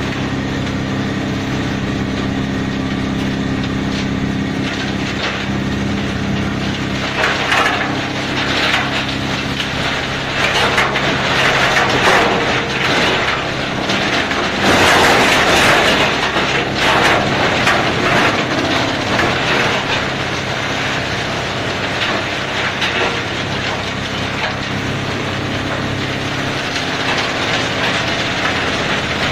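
Tub-type tree root and stump grinder running with a steady machine hum. From about seven seconds in, loud cracking and splintering comes over the hum as tree roots in the hopper are crushed into chips. It is loudest in the middle and eases back to the steady running hum in the last third.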